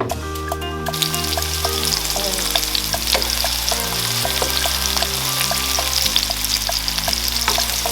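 Onions frying in hot olive oil, a loud, steady sizzle that breaks out about a second in as they go into the pot.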